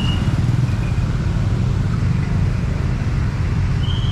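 Steady low rumble of road traffic at a level crossing, with a faint brief high tone about two seconds in.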